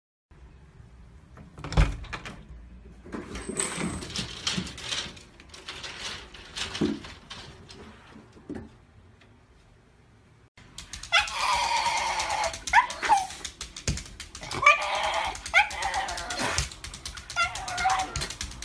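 A Shiba Inu whining and yipping in repeated high, wavering cries in the second half. Before that come scattered knocks and rustling, with a sharp thump about two seconds in.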